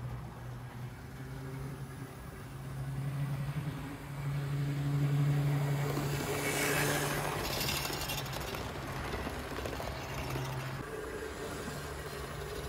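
HO-scale Athearn Blue Box F7 model diesel locomotive running on layout track: a steady motor-and-gear hum with wheel-on-rail rattle, loudest about six to eight seconds in as it passes close.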